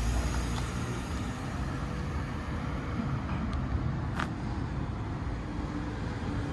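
Street traffic: a motor vehicle running past with a steady low rumble, and a single sharp click about four seconds in.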